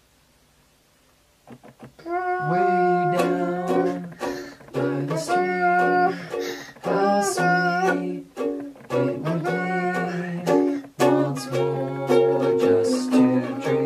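A brief hush, then a strummed stringed instrument starts up about two seconds in, with a father and daughter singing a slow song over it.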